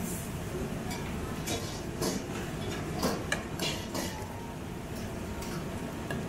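Busy wok station in a restaurant kitchen: the steady rush of gas wok burners and extraction, with metal ladles clanking against woks again and again, mostly in the first few seconds.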